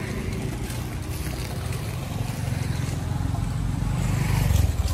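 Street traffic: a low rumble of passing road vehicles, swelling to its loudest as one goes by close near the end.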